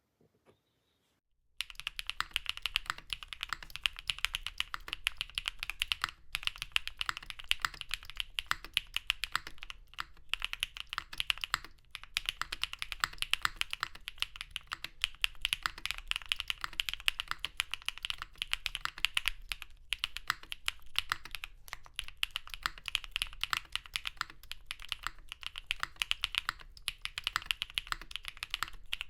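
Fast, continuous typing on a mechanical keyboard starting about a second and a half in: a KBDFans Tofu60 2.0 with stock, factory-lubed Osume Sakura linear switches, a polycarbonate plate with plate and case foam, and GMK keycaps. It is a dense run of key clacks with brief pauses.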